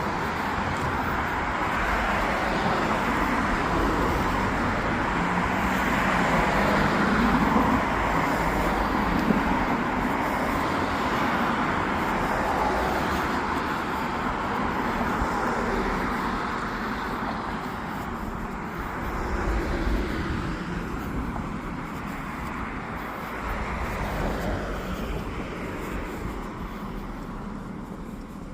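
Road traffic: a steady hum of passing cars that swells and eases as vehicles go by, fading near the end.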